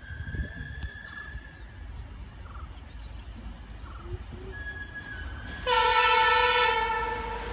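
Train horn sounding once, about five and a half seconds in. It is a loud, sudden, steady chord that holds for about a second and then fades away. Before it there is a low rumble and a faint thin high tone.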